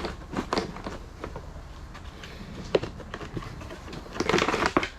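Knocks and clatter of a removed ATV body panel being handled and set down: scattered single knocks, then a quick cluster of clattering about four seconds in.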